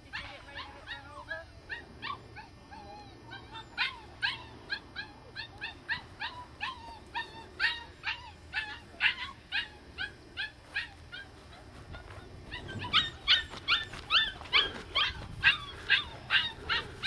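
Australian Shepherd puppies whimpering and yipping: thin whines at first, then a run of short high yips about two a second, louder and quicker over the last few seconds.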